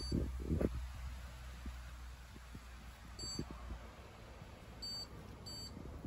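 Hoover condenser tumble dryer's control panel giving short, high beeps as its program dial is switched on and turned: one at the start, a quick pair about three seconds in, and two more near the end. A couple of knocks from the hand on the dial come in the first second, over a steady low hum.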